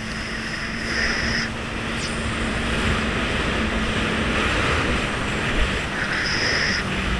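Jet ski engine running at steady cruising speed over a rush of wind and water spray, its pitch easing slightly near the end.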